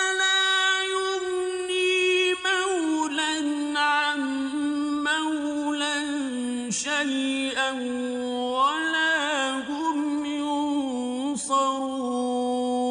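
A solo male voice chanting a verse of the Quran in Arabic: long held notes with ornamented, wavering turns, the pitch stepping down a little after about two seconds.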